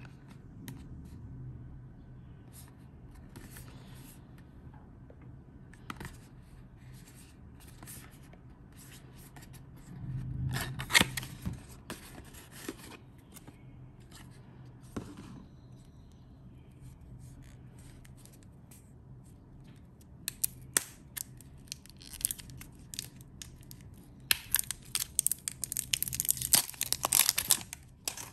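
A small cardboard box handled and opened and a roll of mouth tape taken out: scattered scrapes and taps of paperboard, a louder rustling tear about ten seconds in, and a dense run of crackling and tearing near the end as the wrapping comes off the roll.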